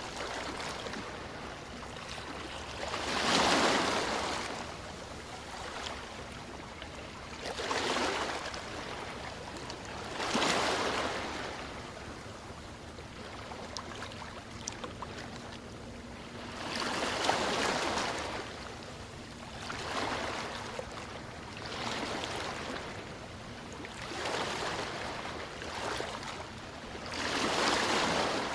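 Sea waves washing in and drawing back, a swell of surf noise every few seconds over a steady wash.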